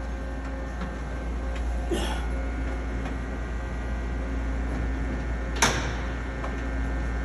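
Steady low hum of a CNC lathe, with a faint knock about two seconds in and a sharper metal knock about five and a half seconds in as the workpiece is turned by hand in the chuck jaws.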